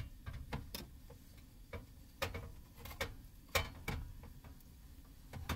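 Garlic frying in olive oil in a cast-iron pan: irregular sharp crackling pops, two or three a second, over a low rumble.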